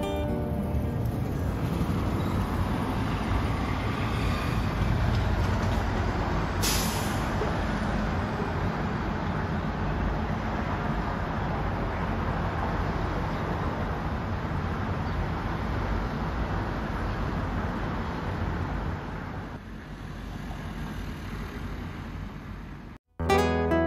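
Steady city traffic noise heard from high above the street, with a brief sharp hiss about seven seconds in. It turns a little quieter about twenty seconds in.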